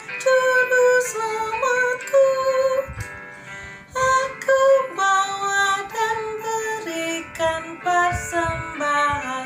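A woman singing an Indonesian children's offering hymn in Indonesian, with instrumental backing music.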